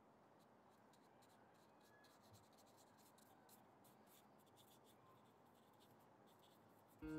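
Near silence, with faint scratchy strokes of a paintbrush working acrylic paint on watercolor paper. Guitar music comes in suddenly at the very end.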